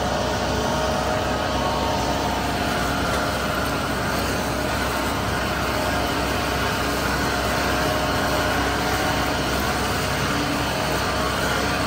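Kubota M5-111 tractor's diesel engine and a Kubota DMC8028R disc mower-conditioner running steadily together while cutting hay, a constant mechanical drone with a few steady tones over it.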